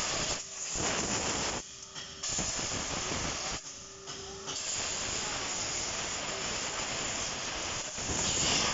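Compressed air from a blow gun hissing through an old diesel EGR cooler in three blasts, the last one long, driving soot out of it. The cooler is badly clogged with carbon.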